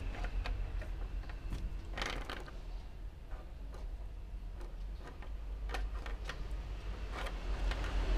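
Light, irregular clicks and taps of a plastic ballpoint pen being batted and nudged across a wooden tabletop by a kitten's paws, over a steady low hum.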